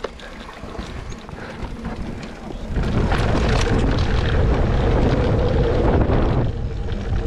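Mountain bike riding down a rough, dry dirt trail: the tyres run over the dirt and the bike clatters with repeated knocks over bumps, with wind rumbling on the handlebar camera's microphone. It gets louder about three seconds in and eases again near the end.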